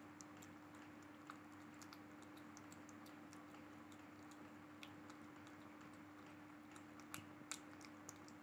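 A kitten eating chopped meat from a plastic tub: faint, irregular little clicks and smacks of chewing and licking, a few louder ones near the end, over a steady low hum.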